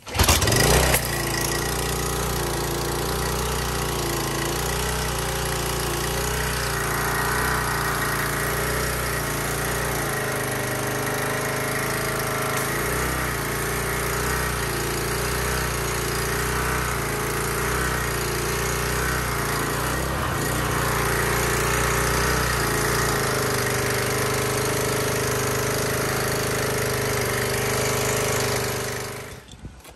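Briggs & Stratton single-cylinder engine on a Troy-Bilt 2800 pressure washer starting right away and running steadily for about half a minute, then shutting off near the end. It starts at once after its carburetor and fuel lines were cleaned, the cure for years of hard starting.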